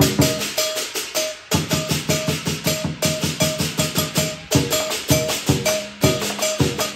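Teochew lion dance percussion, with drum and cymbals beating a fast, even rhythm of about five strokes a second. The beat thins out briefly about a second in and changes pattern near the end.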